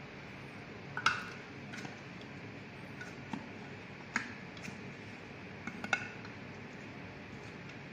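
A handful of light, sharp clinks and taps of kitchenware against a stainless steel mixing bowl, as flour is tipped in from a plastic measuring cup, over a steady faint hiss. The loudest clinks come about a second in and again near six seconds.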